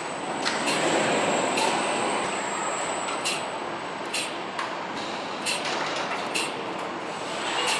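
Truck assembly line noise: a steady mechanical din with short hisses recurring about once a second.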